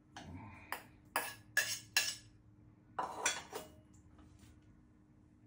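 Stainless steel bowls clanking as they are moved and set down. There is a quick run of clanks in the first two seconds and another cluster about three seconds in.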